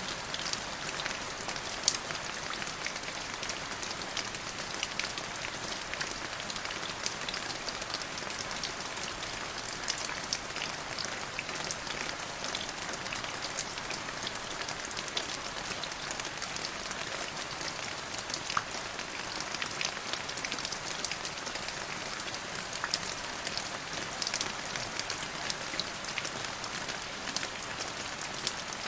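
Steady rain falling, a continuous hiss sprinkled with many distinct close drop strikes.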